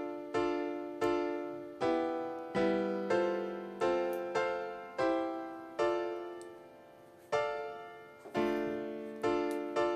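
Background music on a piano-like keyboard: notes and chords struck about once or twice a second, each left to ring and fade. A longer note dies away about six seconds in before the playing resumes.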